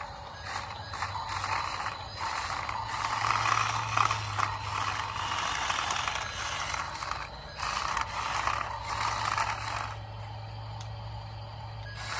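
Small gear motors of a toy RC excavator and RC dump truck whirring and grinding in stops and starts as the machines move, quieter for the last couple of seconds, over a low steady hum.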